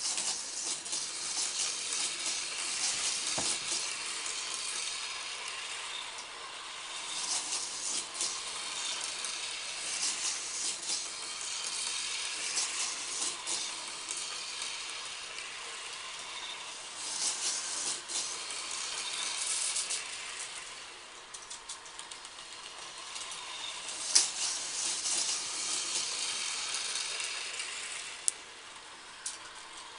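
Marbles rolling around the plastic track loops of a toy marble run: a continuous high rattle that swells and fades in waves, with a few sharp clicks in the second half.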